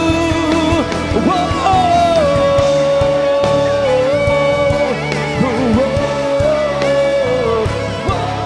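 Live worship band music: a lead melody holding long notes and sliding between them, over a full band accompaniment.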